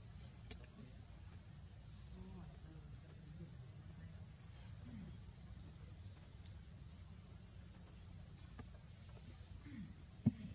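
Steady high-pitched chorus of insects over a low outdoor rumble, with a few faint clicks and one sharp click near the end.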